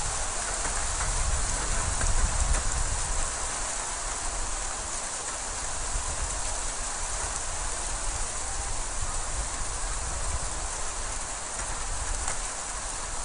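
Hail falling and striking the street and rooftops: a dense, steady hiss of countless small impacts, with a low rumble underneath.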